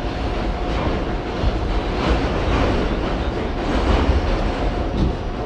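R68 subway train running on the track: a steady rumble with scattered knocks and rattles from the wheels and car.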